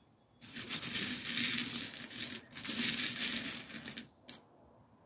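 A heap of small silver metal charms jingling and clinking as fingers stir and rummage through them in a dish, in two bouts with a brief pause between. Near the end comes a single sharp clink.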